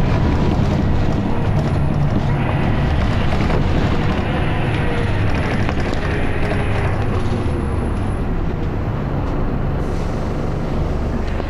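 Scania L94UB bus's diesel engine and ZF automatic gearbox running steadily under way, heard from inside the passenger saloon. The noise brightens for a few seconds in the middle, then settles back.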